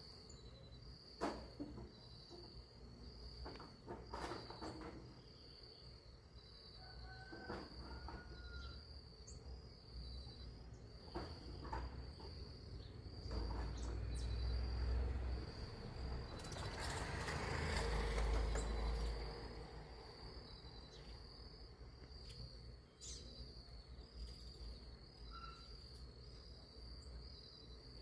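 Steady, pulsing high-pitched insect chorus of crickets or cicadas, with a few short bird chirps and scattered clicks. A louder rushing noise with a low rumble swells and fades from about halfway through.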